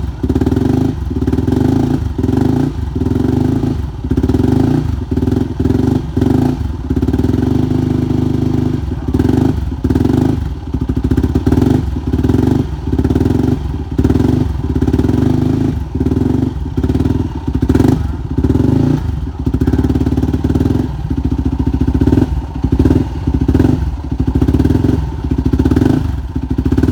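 Yamaha WR450F single-cylinder four-stroke engine running on its first start after a full top- and bottom-end rebuild. Its sound dips briefly many times.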